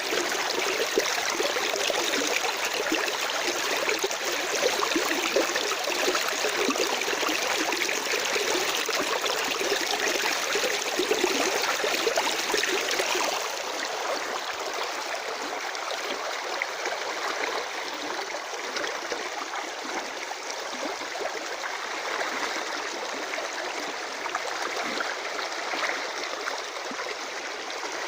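Natural running water flowing steadily, a dense even rush that drops a little in level about halfway through.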